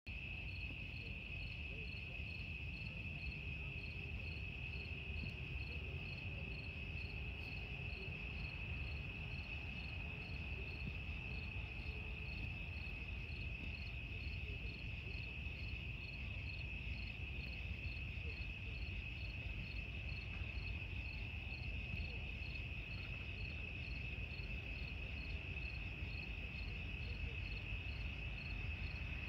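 A steady chorus of night crickets: a continuous high trill with a faint quick pulsing above it, over a low steady rumble.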